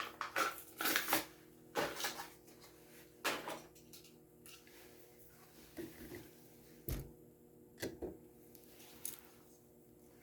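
Crinkling and clicking of a plastic blister pack and card backing being handled and opened by hand to free a die-cast toy car, busiest in the first few seconds and then a few scattered soft clicks. A faint steady hum lies underneath.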